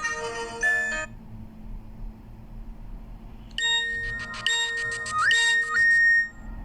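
Two short Nokia 7270 ringtone melodies played on a Fly E154 phone's MediaTek MIDI synthesizer. The first is a brief chime of about a second. After a pause of over two seconds comes a longer bell-like phrase of about two and a half seconds, with a held high note and a quick upward slide near its end.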